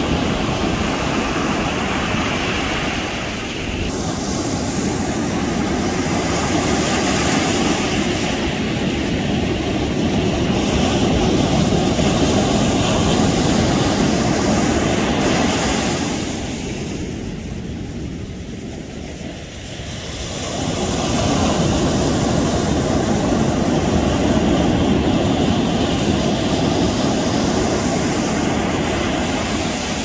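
Ocean surf breaking and washing up a sandy beach: a steady rushing that swells and eases, with a lull about two-thirds of the way through before the next wave builds.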